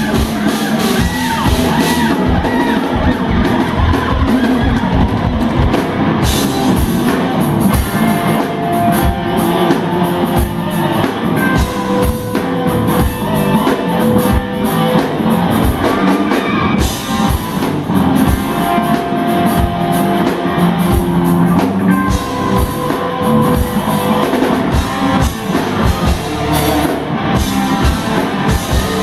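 Live instrumental rock band playing loudly: electric guitars over bass guitar and a drum kit.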